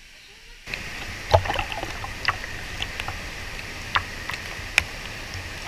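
Hot-spring waterfall pouring and splashing into a pool, with sharp drops and splashes striking close by. The steady rush of water starts suddenly under a second in.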